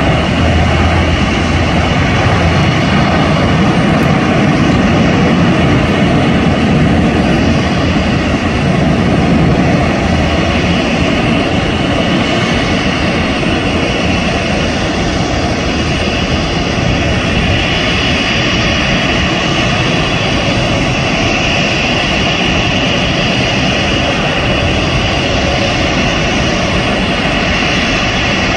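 Steady jet whine and rumble from a Boeing 767-300ER airliner on the apron. A deep rumble is strongest for the first ten seconds or so, and a higher whine grows stronger from about halfway through.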